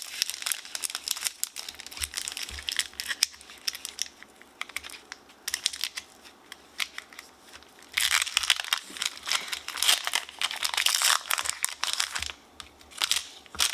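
Foil Pokémon booster pack wrapper being crinkled and torn open by hand, an irregular crackling, louder from about eight to eleven seconds in.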